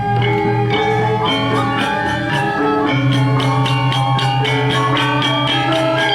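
Balinese gamelan music: bronze metallophones ringing with fast, even strikes over a sustained low tone.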